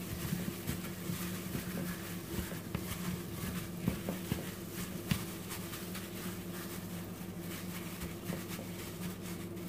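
A steady low hum, with a few faint clicks and knocks.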